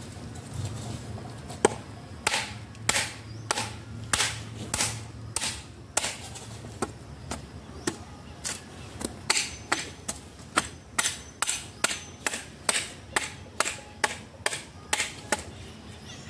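Repeated sharp chopping knocks of a hand tool striking a tree trunk to strip off its bark. They start irregularly and settle to about two strikes a second in the second half.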